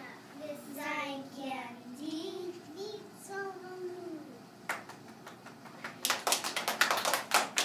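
Young children's voices singing the end of a short song together. Then hand claps begin, a few at first about three seconds later, turning into loud, dense applause from the group of children about a second after that.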